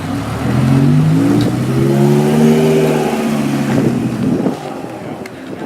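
Car engine revving hard: the pitch climbs over the first two seconds, holds briefly, then falls away as the throttle closes, leaving a rougher crackle near the end.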